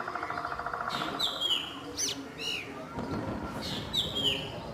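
Young drongo calling: a series of sharp, high calls that sweep down and then arch, repeated about once a second, with a fast rattling buzz in the first second.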